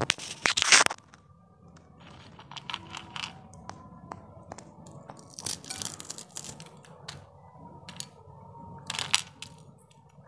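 Crisp fried masoor dal tisauri (sun-dried lentil dumplings) crunching and crackling as they are broken apart by hand, the crumbs and pieces clicking onto a steel plate. There is a loud crunch in the first second and another near the end, with small crackles between. The crunch is the sign that the tisauri have fried very crisp.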